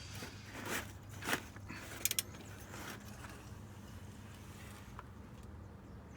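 A ratchet wrench turning the stiff crankshaft of a Honda B18C1 engine by hand: a few short metallic clicks and scrapes in the first two seconds or so, over a low steady hum.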